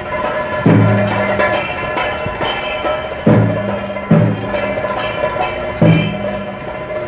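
Festival percussion music: dense, continuous ringing of metal cymbals, cut by four deep, booming drum strokes at uneven intervals.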